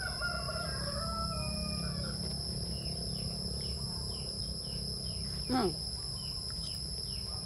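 Steady high-pitched chorus of insects, with a run of short repeated chirps, about two a second, through the second half. A person's voice gives one brief falling "mm" about halfway through.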